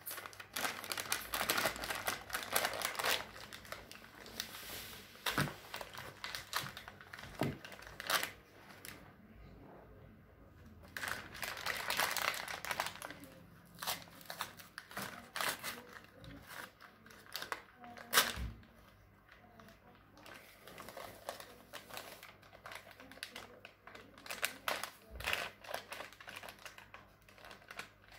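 A paper bag being handled and opened, its paper crinkling and crackling in uneven bursts, with a few sharp knocks in between.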